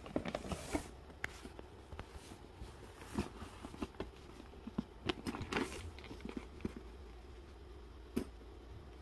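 A young orange tabby cat rummaging in a zippered fabric bag of treats: faint, irregular scratching, rustling and small knocks, busiest around the middle, with one sharper knock near the end.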